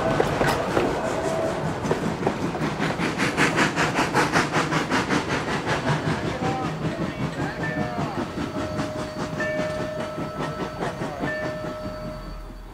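Rio Grande Southern No. 20, a narrow-gauge 4-6-0 steam locomotive, working with an even exhaust chuff of about five beats a second that fades away. Thin steady high tones come and go in the second half.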